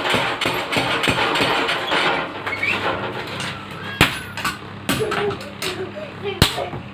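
Mechanical power hammer pounding in quick repeated blows, about four or five a second, which stop about two seconds in while its motor keeps humming. Three separate sharp hammer strikes follow.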